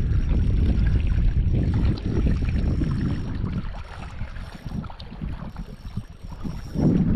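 Wind buffeting the microphone: a low, gusty rumble that eases off for a couple of seconds about halfway through.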